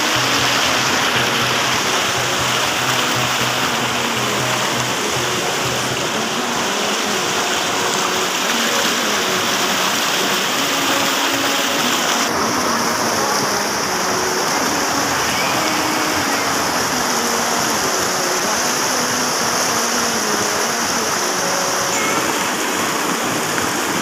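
Fast, muddy river water rushing and splashing over rocks, a steady loud rush whose tone shifts abruptly about halfway through. Faint background music with a melody runs underneath.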